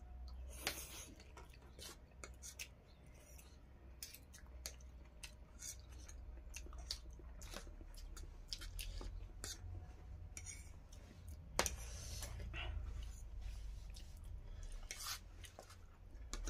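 Spoons and forks clicking and scraping on plates during a meal, with chewing, and one sharper clack about two-thirds of the way in. A low hum runs underneath, stronger in the second half.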